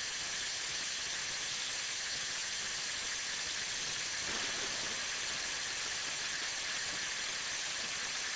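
ProInert inert-gas fire suppression system discharging, a 300-bar gas cylinder let down to 42 bar through its valve: a steady, high hiss of gas rushing into the room, making a lot of noise.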